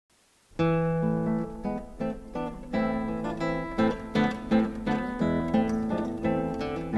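Music: an acoustic guitar strumming chords, starting about half a second in.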